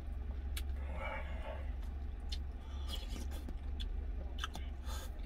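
A plastic spoon clicking and scraping against a plastic food tub while someone eats stew, with scattered sharp ticks and a short rustle about a second in. A steady low hum runs underneath.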